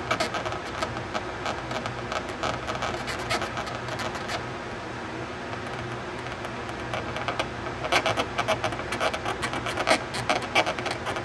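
Wooden toothpick scratching and picking dried white acrylic paint out of the engraved lettering on a black bakelite cabinet: a rapid run of small dry scratchy clicks, thinning out for a couple of seconds midway.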